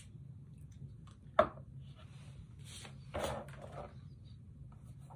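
A man puffing on a tobacco pipe: a sharp click a little over a second in, then a run of short breathy puffs and the blowing out of smoke.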